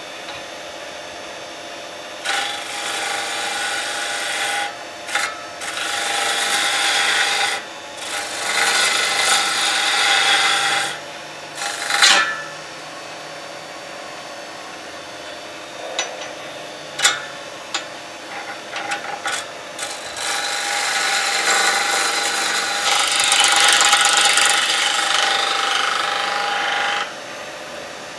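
Turning tool cutting a spinning Golden Cypress blank on a Record Power Coronet Herald wood lathe: a rough scraping shush of shavings in passes of a few seconds, with a longer pass near the end. Between passes the lathe runs on with a steady hum and a few sharp clicks.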